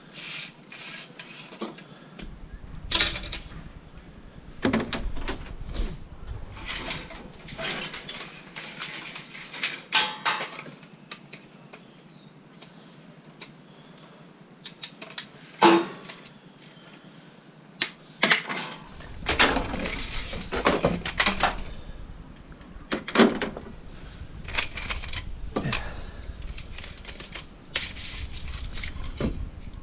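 Scrap metal being handled and worked apart by hand: irregular clanks, knocks and scraping, with short quiet gaps between bouts.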